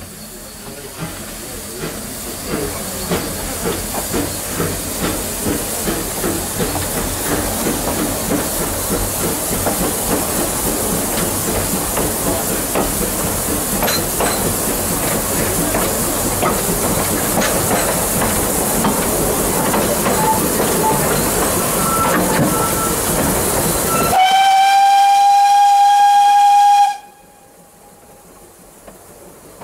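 Vale of Rheidol narrow-gauge steam tank locomotive working hard, its exhaust beats over a steady hiss of steam growing louder and quicker as the train gathers speed. Near the end the locomotive's steam whistle gives one long blast of about three seconds, and the sound then drops away abruptly.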